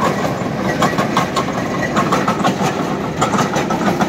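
Truck-mounted borewell drilling rig running while drilling. Its engine drones steadily under frequent irregular metallic clanks and rattles.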